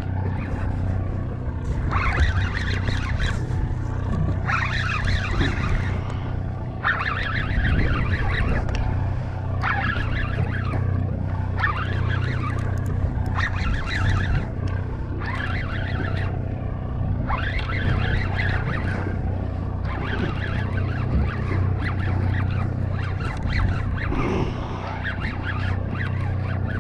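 Party boat's engine running with a steady low drone, overlaid by irregular patches of hiss a second or two long.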